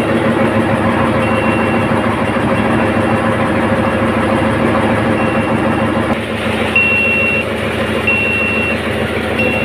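Steady drone of marine diesel engines running in a ship's engine room. Over it, a short high electronic beep repeats about once every 1.3 s, faint at first and much louder from about two-thirds of the way in.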